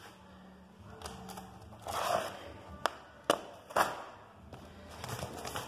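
Large cardboard box being handled and opened: a rustling scrape of cardboard, then three sharp knocks against it, over a faint low hum in the first second or so.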